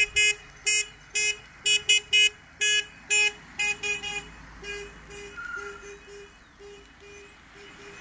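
Car horn honking in a rapid run of short toots, about two a second, loud over the first few seconds and then growing fainter.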